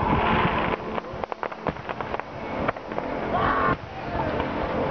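Fireworks display: a rapid series of bangs and crackles from bursting shells, with hissing washes at the start and about three seconds in. Spectators' voices are heard under it.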